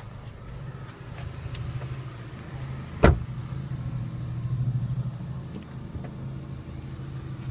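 A single sharp click about three seconds in as the Chevrolet Sonic's trunk latch pops open, over the steady low hum of the car idling.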